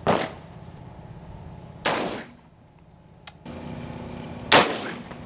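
Three loud, sharp rifle shots from a 20-inch-barrelled 6.8 mm SPC rifle, about two seconds apart, each with a short ringing tail. The last is the loudest.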